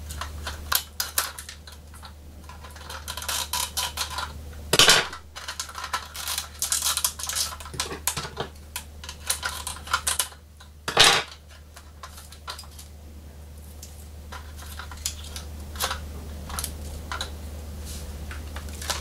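Clicks, taps and scrapes of a blue-handled knife and fingers working at a diecast metal toy car, freeing it from its packaging. There are two louder scrapes, about 5 and 11 seconds in.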